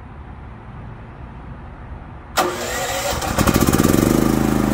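Champion 100520 dual-fuel inverter generator, running on natural gas, started with its electric start switch. About two seconds in the starter cranks briefly, then the engine catches and runs up to a steady speed.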